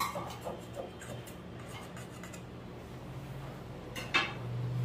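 Knife blade scraping against the inside wall of an aluminium cake tin in short strokes during the first second or so, loosening the edges of a baked cake to turn it out. A single sharp knock comes about four seconds in.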